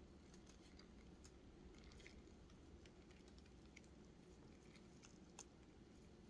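Near silence with faint scattered small clicks and rubbing as a vintage plastic keychain puzzle is handled in gloved fingers, the sharpest click about five seconds in.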